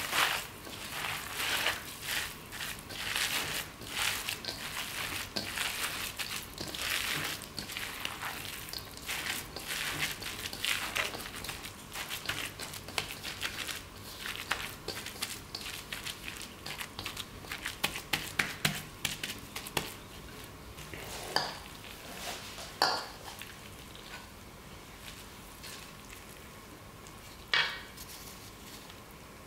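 A gloved hand mixing and squeezing dumpling filling of minced pheasant and chopped greens in a stainless steel bowl, in rapid moist rustling strokes. After about twenty seconds the mixing stops, and a few sharp clinks of a metal spoon against the steel bowl follow as filling is spooned onto wrappers.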